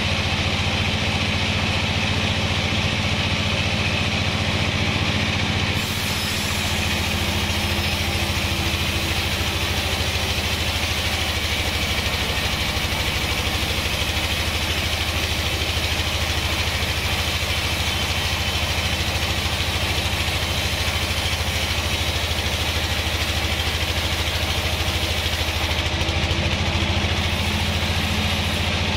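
Band sawmill running and sawing along a log: a loud, steady drone with a hiss over it. Its tone shifts about six seconds in and shifts back near the end.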